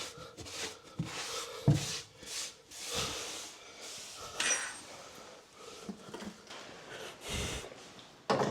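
Scattered light knocks, clicks and rustling rubs of objects being handled in a small room.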